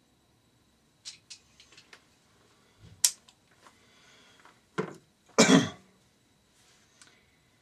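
Hand tools and engine parts being handled during an engine strip-down: a few light clicks, a sharp clink about three seconds in, then a knock and a louder clatter a little after five seconds.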